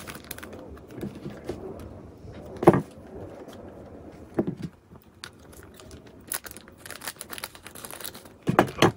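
Handling of small plastic model-kit parts on a table: scattered clicks and knocks, the loudest about three seconds in. A clear plastic bag crinkles in the second half, ending in a couple of louder knocks.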